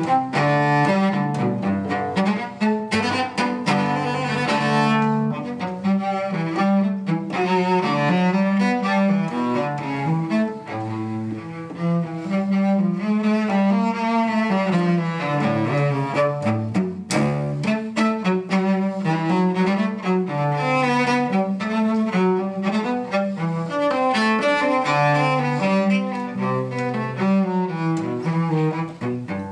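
Solo cello played with the bow, in a continuous line of moving notes.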